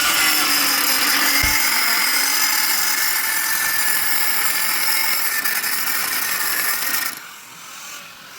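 Power tool running hard against the steel of an excavator bucket: a steady, loud, whining grind. It cuts off about seven seconds in.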